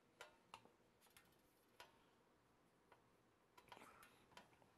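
Faint handling sounds of hands working wires loose around a step-down transformer in a metal record-player chassis: a few sharp small clicks in the first two seconds, then a busier patch of clicks and rustling near the end.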